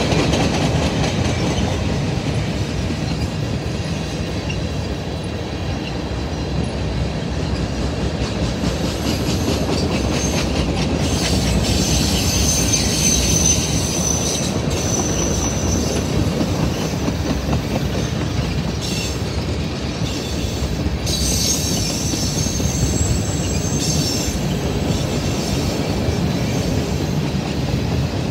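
CSX manifest freight train's tank cars and hoppers rolling past, a steady rumble of steel wheels on rail. High wheel squeal rises over it about halfway through and again later.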